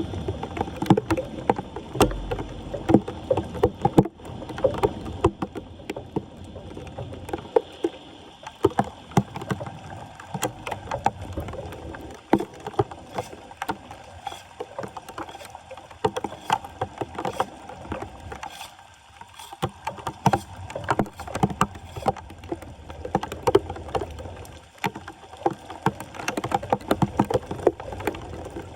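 Floodwater splashing and sloshing, with many irregular knocks and scrapes, as a clogged street drain is being cleared.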